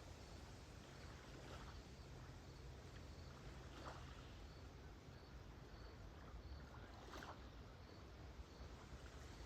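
Near silence: small lake waves lapping softly on the shore, three gentle washes, over a faint cricket chirping at a steady rate of a little more than once a second.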